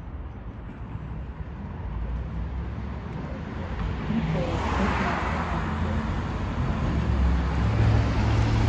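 City street traffic: a car passes, its tyre and engine noise swelling to a peak about five seconds in, and a low engine rumble grows louder toward the end.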